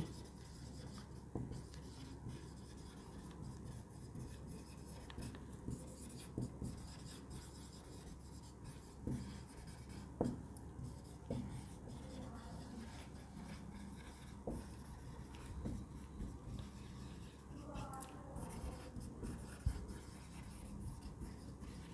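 Marker pen writing on a whiteboard: faint scratching and squeaking of the felt tip across the board, with light taps here and there as strokes start and end.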